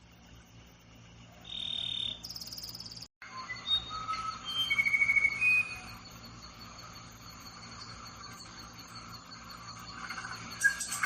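A songbird singing short, clear whistled notes at varying pitches over a steady, high insect trill, with a brief dropout about three seconds in.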